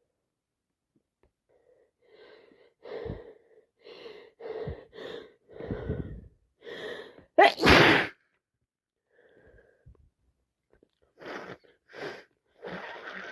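A woman with a cold and sinusitis takes a run of short, catching breaths that build up to a loud sneeze a little past halfway. A couple more short sniffs follow near the end.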